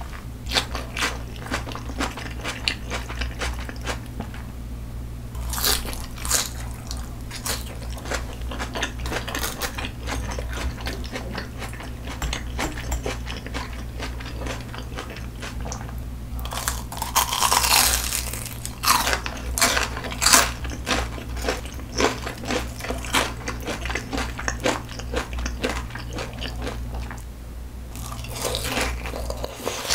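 Close-miked eating sounds: steady chewing and biting, with louder crunchy bites clustered about two-thirds of the way in as a breaded fried oyster is eaten. A steady low hum runs underneath.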